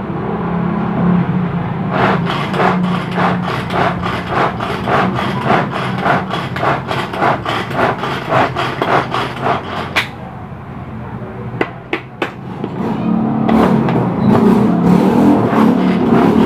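A utensil working carrot siomai filling in a bowl, striking and scraping in a rhythmic run of strokes about two or three a second that stops about ten seconds in. A steady low hum lies underneath.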